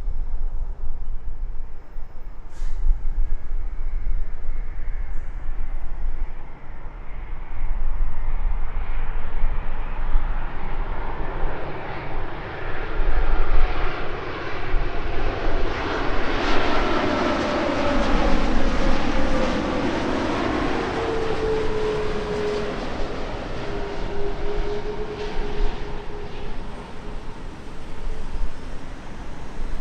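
Jet airliner on approach to land, passing close overhead: its engine noise builds, peaks about two-thirds of the way through and fades, with a whine that falls in pitch as it goes by.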